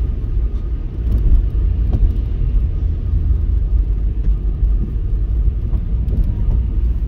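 Steady low rumble of a car being driven, heard from inside the cabin: engine and tyre noise on a wet road.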